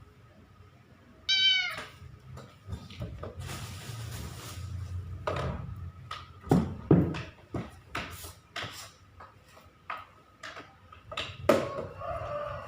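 A single short, high animal call, like a meow, about a second in, followed by scattered knocks, clicks and rustling.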